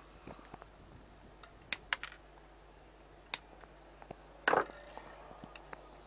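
A few light, sharp clicks and taps from small electronic parts being handled on a workbench, with one louder brief noise about four and a half seconds in, over a faint steady hum.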